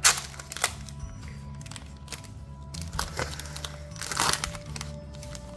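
Trading cards and their foil booster-pack packaging being handled, giving several short crinkles and crackles, the longest and loudest about four seconds in, over soft background music.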